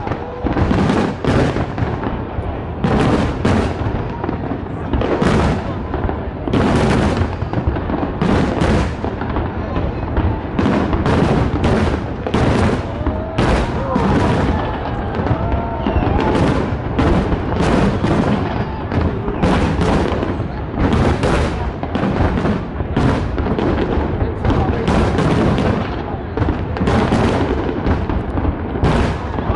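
Fireworks display: a continuous barrage of aerial shells bursting in rapid, overlapping booms and crackles, a few each second, with some crowd voices underneath.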